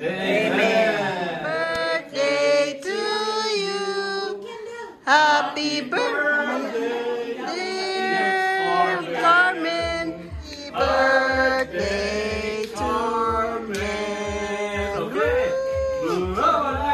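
Several voices singing long, held notes together. A low bass beat joins about ten seconds in.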